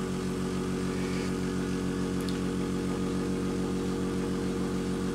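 A small air compressor running with a steady hum and a fast, even pulse, driving a UGears wooden pneumatic engine kit. The engine only just runs, with much of the air leaking past its main piston and piston valve.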